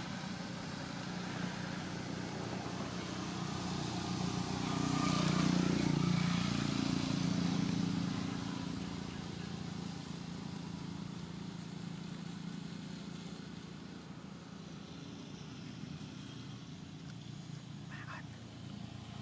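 A motor vehicle's engine running as it passes, growing louder about four seconds in and fading again after about eight seconds, over a steady low hum.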